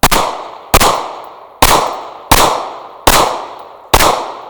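Pistol fired six times in a steady string, a shot about every three quarters of a second, each report ringing out and dying away before the next.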